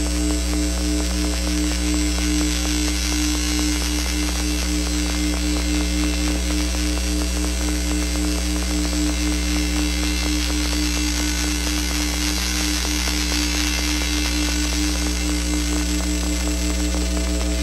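Electronic noise drone from a drone box synthesizer run through Korg Kaoss Pad effects: a steady low hum with several held tones above it and a thick layer of hiss. It holds unchanged throughout.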